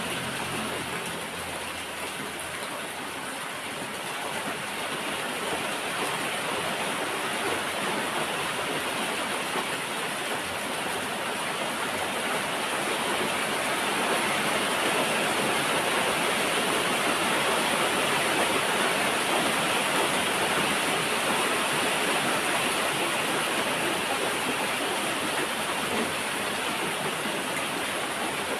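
Steady rain falling, a dense even hiss that grows somewhat heavier over the middle stretch.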